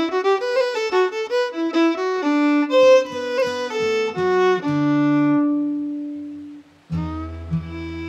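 Fiddle playing a fast Celtic tune over acoustic guitar accompaniment, the melody ending on one long held note that fades out. Sustained music starts again about seven seconds in.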